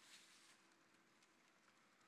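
Near silence: faint room tone, with a soft hiss fading out in the first half second and a few scattered faint ticks.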